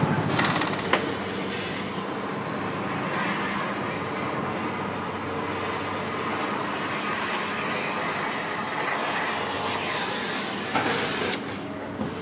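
Heavy machinery working scrap metal: a steady mechanical din, with a couple of sharp knocks about half a second and a second in and another clank near the end.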